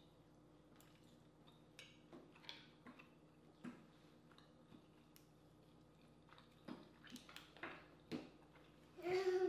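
Scattered small clicks and soft wet squishes of a shellfish shell being picked apart by hand and eaten, over a faint steady hum. A short pitched vocal sound comes near the end.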